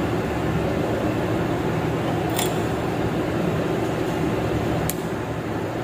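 Steady mechanical background hum of a large workshop, with two faint light clicks about two and a half seconds in and near the end.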